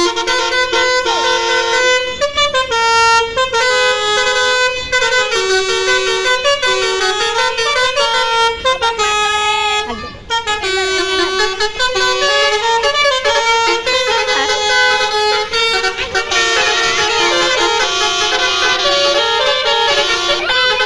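Bus telolet horns: sets of air-horn trumpets sounding loud, steady notes that step up and down in quick melodic sequences, with a short break about halfway.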